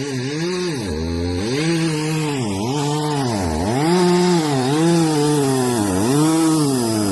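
Petrol chainsaw running at high revs and cutting into a small tree, its engine pitch repeatedly sagging and recovering as the chain bites into the wood.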